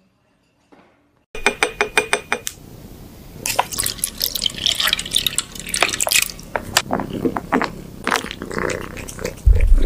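A liquid cat treat squeezed from a plastic pouch onto food in a ceramic bowl: wet dripping and crinkling with sharp clicks and clinks, starting about a second in after near silence. A low thump near the end.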